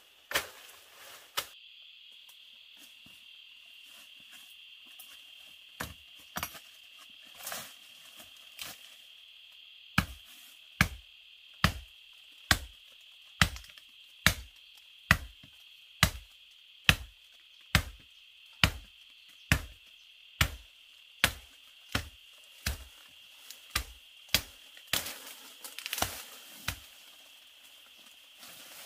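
Steady high-pitched chirring of insects, with a run of regular chopping strokes, a little over one a second, that starts about a third of the way in and stops shortly before the end. A few scattered knocks come before the run.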